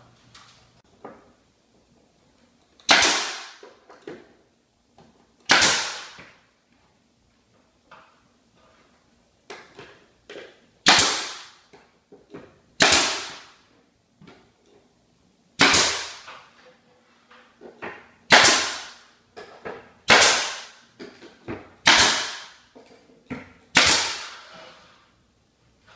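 Bostitch nail gun firing nails through stained wood crown molding to fasten it at the ceiling: about nine sharp shots a few seconds apart, each ringing off briefly, with small knocks of handling between them.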